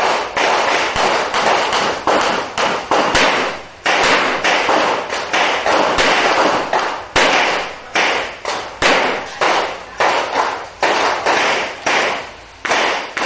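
Revolver gunfire: shots fired in quick strings, each sharp crack followed by a short ringing decay, with brief pauses between strings.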